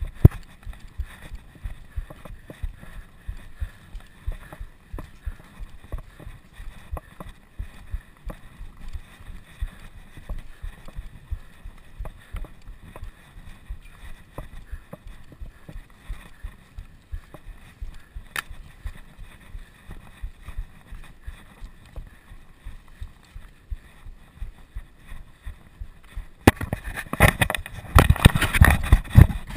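Wind buffeting the microphone and road rattle from a camera riding along on a racing bicycle: a low rumble with many small irregular knocks. Loud wind noise surges in about 26 seconds in and lasts some three seconds.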